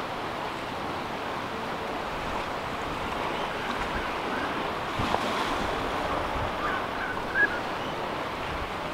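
Steady wash of ocean surf, an even rushing noise with no breaks.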